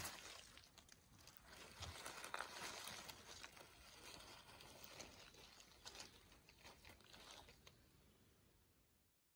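Faint crackling and rustling of dry beech leaves and loose forest soil being handled, fading out near the end.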